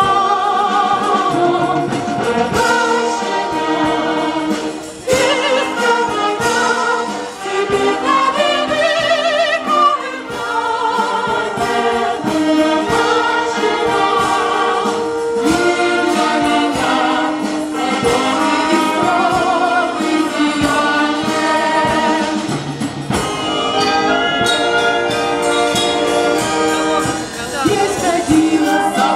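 A female soloist sings a song into a microphone over a children's wind band of clarinets, saxophone, horn and trumpets, her held notes wavering with vibrato.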